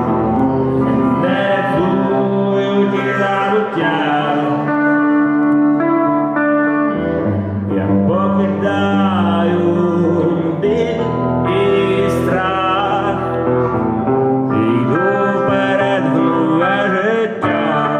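A band playing a live song, with a melodic lead line that bends in pitch over sustained chords and a steady low bass.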